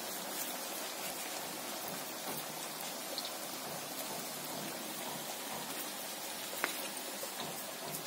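Steady hiss with faint crackles from cooking over an open wood fire, with one sharp crack late on.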